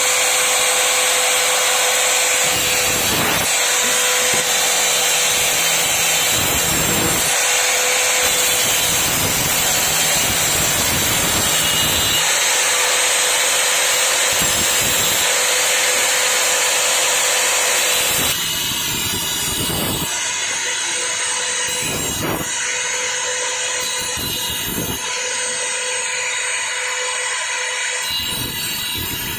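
Handheld electric angle grinder with a cutting disc running with a steady high whine as it cuts through the plastic casing of a mobile phone charger. It gets somewhat quieter about two-thirds of the way through.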